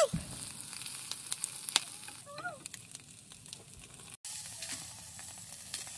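Chicken pieces and feet sizzling on a wire grill over a charcoal fire: a steady hiss with scattered sharp crackles. A short, faint high call sounds about two and a half seconds in.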